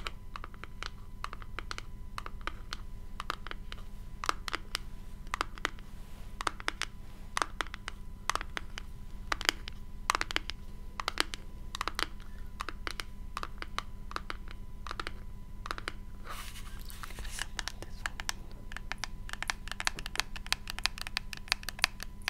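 Fingers tapping on a small black hand-held object close to the microphone: quick, irregular taps, several a second, with a short scratching rub about two-thirds of the way through. A steady electrical hum and thin whine sit underneath, which the uploader puts down to a failing Rode microphone.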